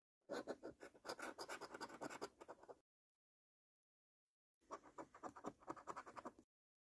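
A coin scraping the coating off a paper scratch card in quick back-and-forth strokes: two bouts of about two seconds each, separated by a silent pause.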